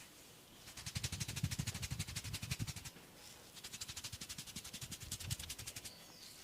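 Rapid, even hand-tapping massage strokes on a person, many light slaps a second, in two runs of about two and a half seconds each with a short break between.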